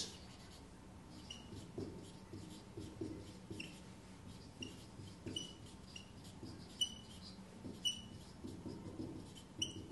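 Dry-erase marker writing on a whiteboard: a string of short, high squeaks and scratchy strokes as the words are written out.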